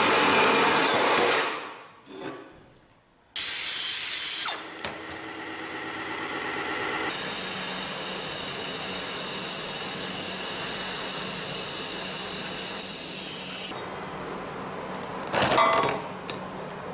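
A metal-cutting chop saw cuts for a second or two and winds down, with a second short loud burst soon after. Then a TIG welding arc on stainless steel runs with a steady hiss for several seconds, and a brief loud burst comes near the end.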